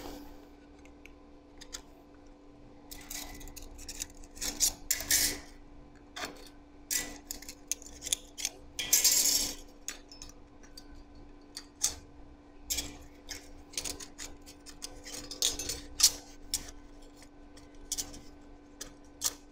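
Small cut-steel rose parts clinking and scraping against each other and against the steel rod stem as they are test-fitted by hand. Irregular light metallic clicks, with one longer rasping scrape about nine seconds in, over a faint steady hum.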